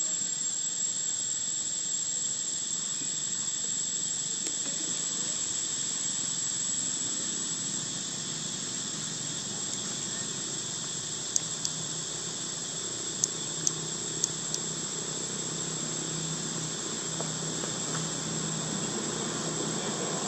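Steady high-pitched drone of forest insects. A few sharp clicks come about halfway through, and a faint low hum runs under the second half.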